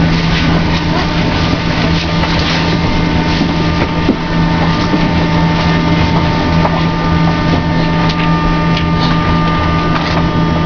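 Old metro car standing at a station: its onboard machinery runs with a steady, loud low hum and fainter high, thin whining tones.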